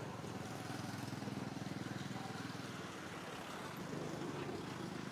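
An engine running steadily, a low rumble made of fast, even pulses.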